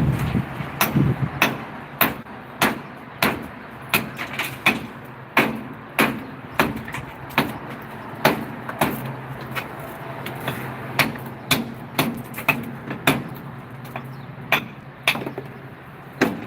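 Hammer striking natural stone in a steady rhythm, a little under two sharp blows a second.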